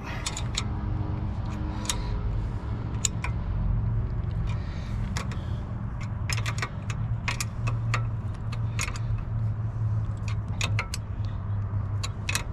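Metal clinks and clicks of a wrench on the winch cable terminal nuts as they are tightened, irregular and scattered, over a steady low hum.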